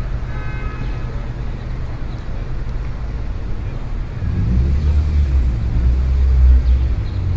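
City street traffic: a steady low rumble of road traffic, with a heavier vehicle's engine drone growing louder about four seconds in and easing off near the end.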